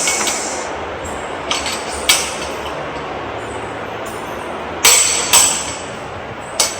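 Scattered clinks and knocks of hard objects being handled, about six, the loudest a pair about five seconds in, over a steady rushing noise.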